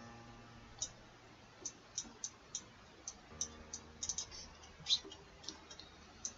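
Computer mouse clicking, a dozen or so short clicks at irregular intervals, as mesh points are selected and dragged.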